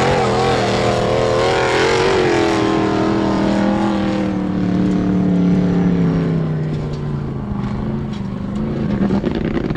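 Formula Offroad car's engine held at high revs under load as it climbs a steep sand-and-gravel slope. It is a loud, steady drone whose pitch wavers in the first two seconds, then settles and sags slightly near the end.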